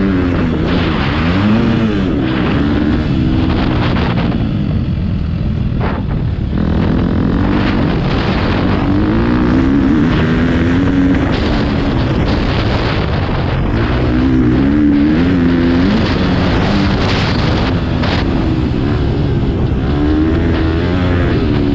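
Motocross bike engine running hard, heard close up, its revs climbing and dropping again every second or two as the rider opens and shuts the throttle.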